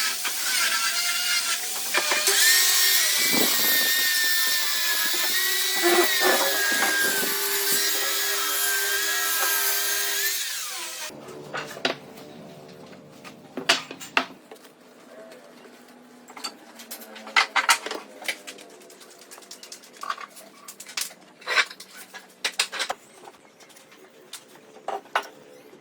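An electric power tool runs on wood for about eleven seconds, its motor pitch wavering under load, then cuts off. After that come scattered light knocks and clicks of hand work on wood.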